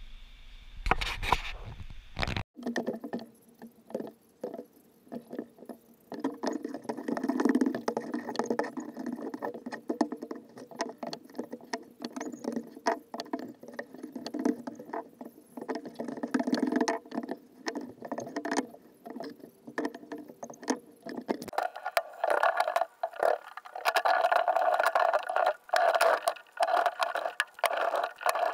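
Workshop handling noise from gluing up thin wood laminations and clamping them onto a bending form: a busy run of knocks, clicks and scrapes. The sound changes abruptly twice, about two seconds in and again near the three-quarter mark.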